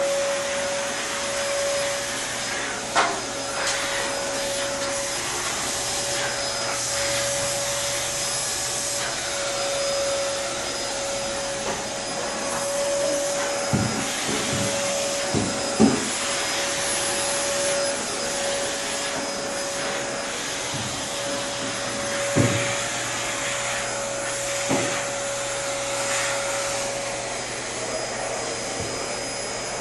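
A motor running steadily with a constant mid-pitched hum, with a handful of dull thumps scattered through it, several close together about halfway.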